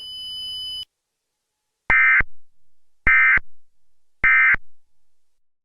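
Emergency Alert System end-of-message code: three identical short bursts of shrill warbling digital data tones, about a second apart, marking the end of the alert. A brief steady high tone comes just before them.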